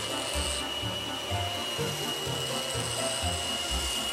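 Gemini Taurus 3 ring saw running, its ring blade grinding along the edge of a piece of art glass, with a steady high whine and hiss. Background music with a low bass line plays underneath.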